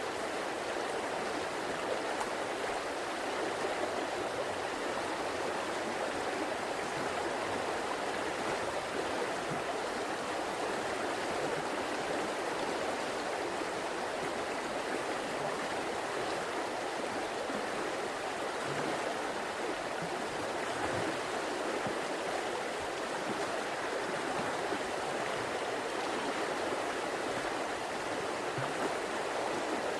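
River water flowing and rushing over stones: a steady, even rush with no pauses.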